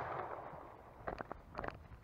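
Echo of a shotgun blast rolling away and fading out over the first half second, followed by a few faint, short clicks and rustles.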